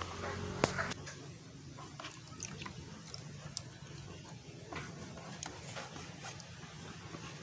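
Scattered light clicks and knocks of handling, the sharpest one about half a second in, over a faint low hum that fades after about a second.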